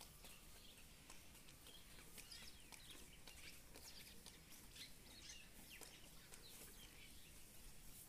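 Faint chirping of small birds: many short, high chirps scattered throughout, over a low steady background hum.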